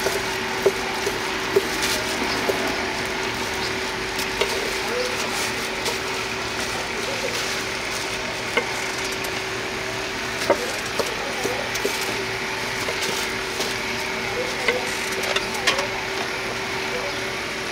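Knife chopping sundae (Korean blood sausage) and offal on a wooden cutting board: sharp, irregular knocks every second or two, over a steady hum and background noise.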